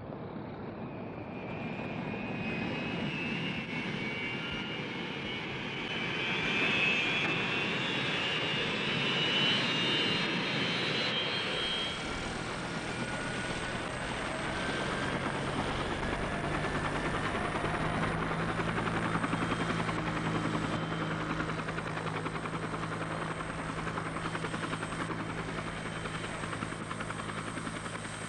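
Helicopter running: a high whine over the first dozen seconds, then a steady low drone for the rest.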